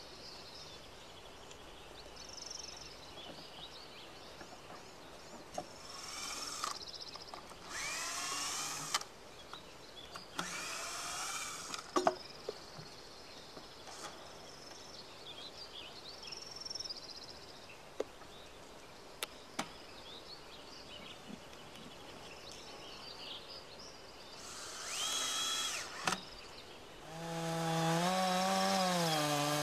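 Faint bird chirps over a quiet forest background, broken by a few short bursts of cutting. Near the end a two-stroke chainsaw revs up and runs at high speed, cutting into a log.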